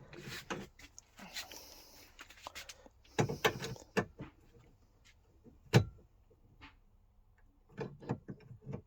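Pump pliers gripping and working a compression olive off a copper pipe: intermittent metal scraping and clicks with pauses between, and one sharp click nearly six seconds in.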